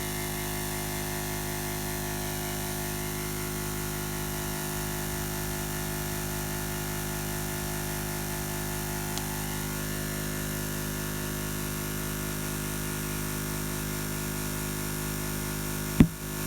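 Smittybilt 2781 12-volt air compressor running steadily as it inflates a tire, and near the end a single sharp bang as the tire bead pops out and seats against the rim.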